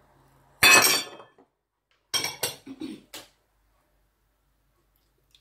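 Kitchenware clattering against a stainless steel mixing bowl: one loud clatter about half a second in, then a handful of sharp clinks between two and three seconds in.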